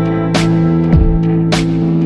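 Instrumental background music: held chords with a steady beat of drum hits.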